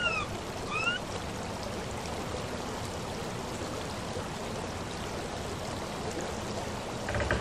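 Steady rushing water, like a stream or waterfall. Near the start two short tones glide in pitch, the first falling and the second rising.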